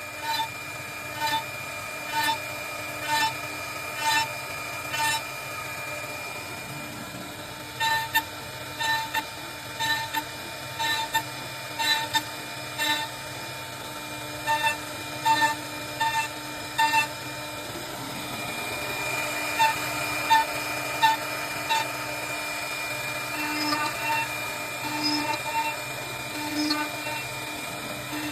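CNC wood-turning lathe running, with a steady machine whine and short pitched pulses about once a second. The pulses pause briefly a quarter of the way through and turn irregular in the last third.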